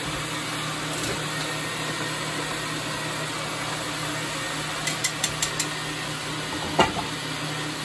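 Countertop blender motor running steadily on a low stir setting, a continuous hum. A few short clicks about five seconds in and a single knock near the end.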